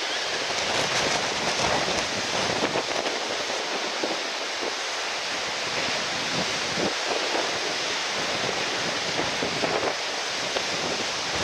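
Strong typhoon-backwash wind and surf make a steady rushing noise, with gusts buffeting the microphone in irregular low rumbles.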